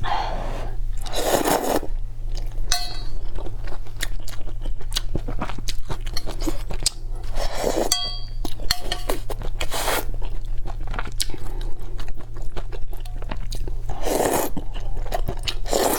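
Close-miked crunching and chewing of seafood, with many short sharp crackles and a few louder crunches, over a steady low hum.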